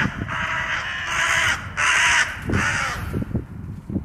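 A hooded crow giving a series of harsh caws, mobbing a kitten that has climbed after it: about four rough calls, the first long one lasting over a second, the last about three seconds in.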